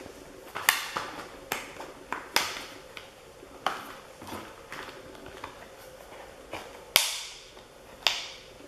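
Handling noise as a plastic e-reader is pushed into a leather case and its elastic corner straps are pulled over the edges: a series of separate sharp clicks and taps, the loudest about seven seconds in.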